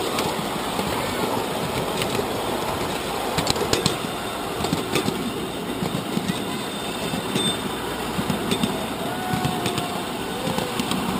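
Miniature train running on 7¼-inch gauge track: steel wheels rumbling steadily on the rails, with irregular sharp clicks over rail joints.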